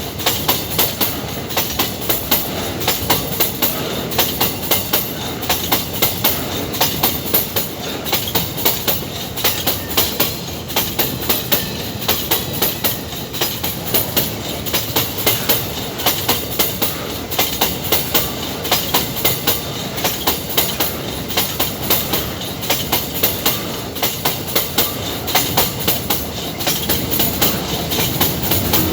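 An empty iron-ore train's wagons rolling past, their wheels clicking over rail joints in a steady, quick rhythm over a continuous rumble.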